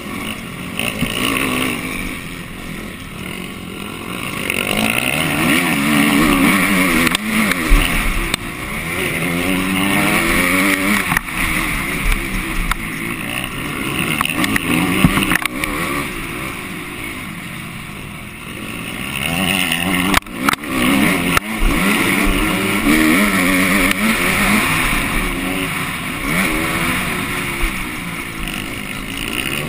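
MX2-class motocross bike engine heard close from a camera mounted on the bike, revving hard and easing off again and again as the rider accelerates out of corners and up the hills, with wind on the microphone. A few sharp knocks a little past the middle, as the bike hits the ruts.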